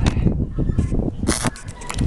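Arc of a Lincoln stick welder crackling in short, broken bursts as a 6011 electrode is struck against a steel fence-gate pipe, with the loudest burst a little past halfway: the arc is catching and going out rather than holding steady.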